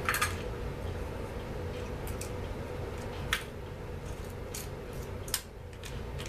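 Small metal parts clicking as they are handled, about six short sharp clicks spaced irregularly over several seconds, over a steady low hum.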